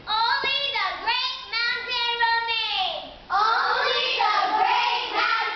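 Children singing, with long held notes that slide down in pitch about three seconds in, followed by several young voices together.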